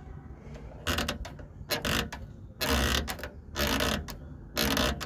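Rear brake cable of a 2010 Ford Ka creaking and scraping where it rubs through its bushing on the rear suspension: about five harsh creaks, roughly one a second. This is the creak the car makes over bumps, and the cable is worn where it rubs.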